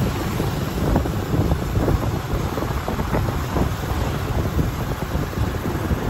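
Wind buffeting the microphone of a moving motorbike, a gusty low rumble over the traffic noise.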